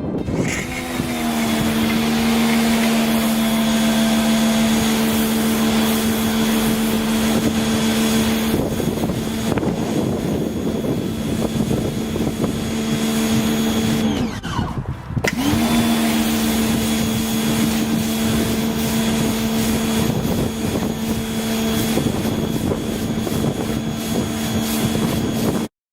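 V-TUF V3 electric pressure washer running: its motor spins up with a rising whine, runs steadily with a hiss that grows rougher from about 8 seconds in, winds down to a stop about 14 seconds in and spins up again a second later, then cuts off suddenly near the end.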